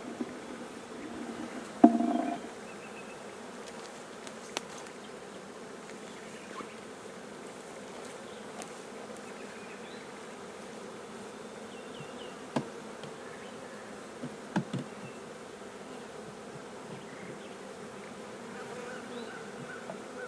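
A swarm of honeybees buzzing steadily around an open hive box, with one loud knock about two seconds in and a few lighter knocks later.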